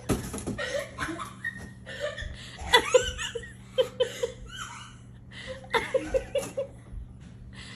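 Human laughter, coming in several bouts of short repeated chuckles with quieter gaps between.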